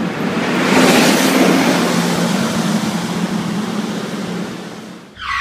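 City bus's diesel engine accelerating loudly past, a steady engine hum under heavy noise, peaking about a second in and then slowly fading. Near the end a ringing tone with several pitches cuts in.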